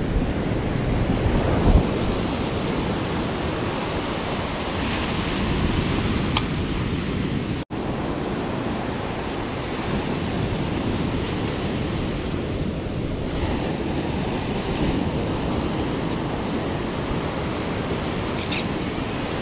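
Ocean surf breaking on the beach in a steady wash, with wind buffeting the microphone. A short knock about two seconds in, and the sound cuts out for an instant about eight seconds in.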